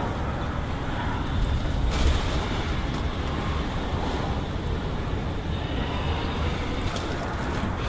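Wind rumbling on the microphone: a steady low noise with no clear events in it.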